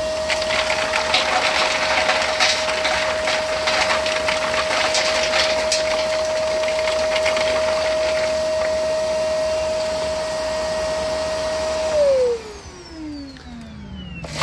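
A vacuum runs with a steady whine, pulling air through a homemade wooden zigzag aspirator to draw the shell fines out of cracked, roasted chestnuts. The nuts clatter and rattle down through the baffles into a steel tray. About twelve seconds in the vacuum is switched off and its whine falls away as it winds down.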